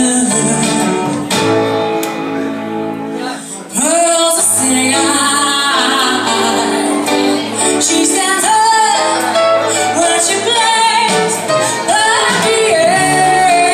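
A woman singing a song into a microphone over instrumental accompaniment, with long held notes near the end.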